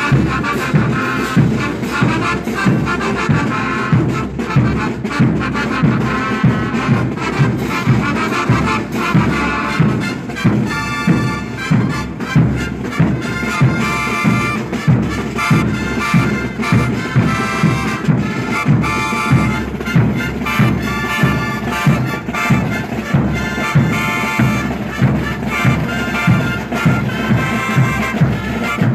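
Brass band music with a steady low beat.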